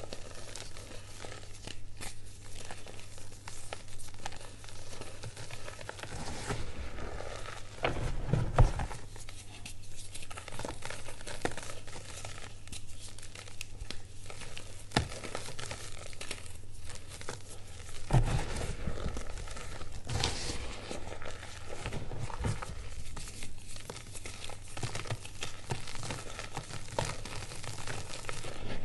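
Lumps of reformed gym chalk being crushed and crumbled in the hands over a tub of loose chalk powder: continuous dry crunching and crumbling with many small sharp cracks. There are louder crunches about eight and a half seconds in and again about eighteen seconds in.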